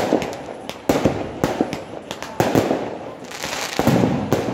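Aerial firework shells bursting, a series of sharp bangs with echoing tails, about a second apart at first and coming faster near the end.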